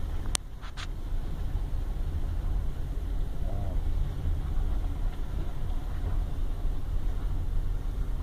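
Steady low rumble of a car's engine and tyres heard from inside the cabin while driving, with two sharp clicks just under a second in.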